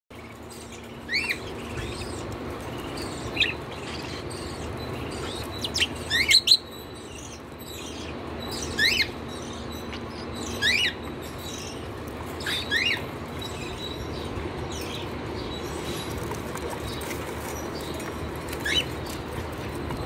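Caged cockatiels giving short, sharply rising chirp calls every second or two, with a quick run of several chirps about six seconds in. A steady low hum runs underneath.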